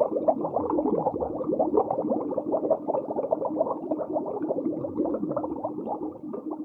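Muffled bubbling and gurgling of air escaping from a sinking plastic toy dump truck, a dense, continuous stream of small bubbles.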